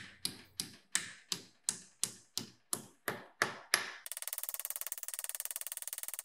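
Hammer striking a small steel plate clamped in a bench vise, folding it over into a 90-degree bend. Sharp metallic blows come about three a second; about four seconds in they quicken into a rapid run of light taps.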